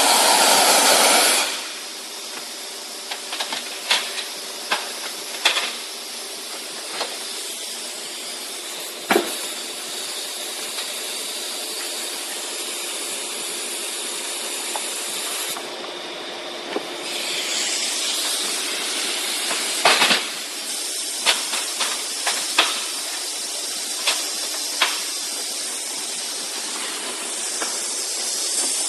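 Compressed-air wet/dry vacuum cleaner running with a steady hiss. The hiss is loud for about the first second and a half, then drops, with scattered clicks and knocks throughout and a louder stretch of hiss about two-thirds of the way in.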